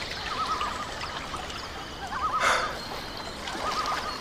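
Lake water lapping and trickling around a swimmer, with a brief splash about two and a half seconds in. A short warbling whistle sounds three times over it.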